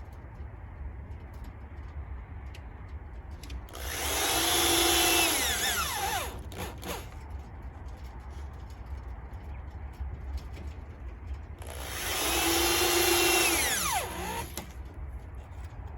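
Power drill run twice, in bursts of about two and a half seconds each; after each burst the motor's pitch falls as it winds down.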